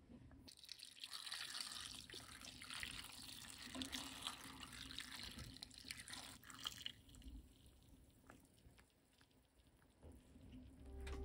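Dark soy-based pickling brine poured from a pan into a glass container of cut garlic scapes, a steady pour of liquid that starts about half a second in and stops about seven seconds in.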